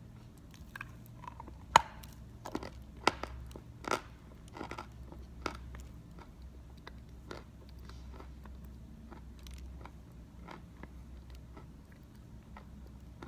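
A chunk of Belgorod edible chalk being bitten and chewed. The loudest crunch comes a little under two seconds in, followed by crisp crunches every half second or so, growing sparse and faint in the second half.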